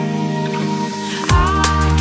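Electronic background music: the drums and bass drop out, leaving held synth chords, then the beat comes back in about a second and a half in with sliding synth notes.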